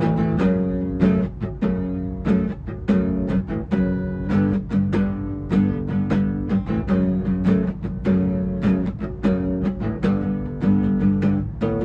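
Acoustic guitar strummed in a steady rhythm, full chords struck over and over.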